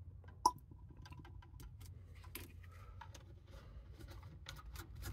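Small clicks and taps of a plastic thinner bottle and a small plastic mixing cup being handled while thinner is added to paint, with one sharper click about half a second in. A faint low hum runs underneath.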